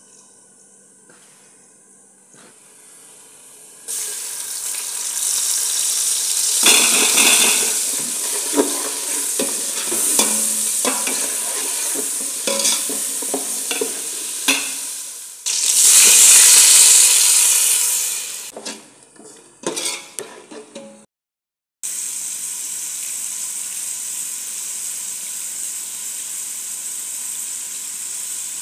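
Sliced onions sizzling as they fry in hot oil in an aluminium pot, with a steel ladle scraping and clinking against the pot as they are stirred. Partway through, the sizzle swells much louder for a couple of seconds. After a brief silence, a steady, quieter hiss carries on.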